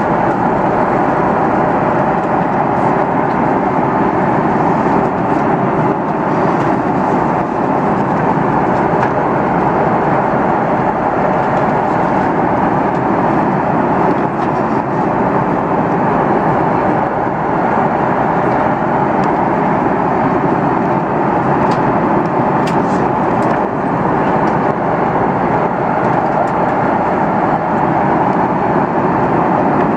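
Steady, even rush of engine and airflow noise inside the cabin of a Finnair Airbus A330-300 airliner, holding at one level throughout.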